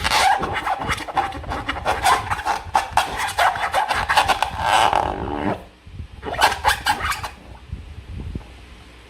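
Slime being squished and worked by hand: a dense run of wet crackling clicks and squelches for about five seconds, then after a short pause a second burst lasting about a second.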